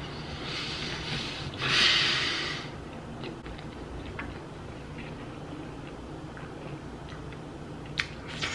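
Heavy breaths out through the nose while chewing a full mouthful of chili cheese fries: a softer rush, then a louder, longer one about two seconds in, followed by small wet chewing clicks.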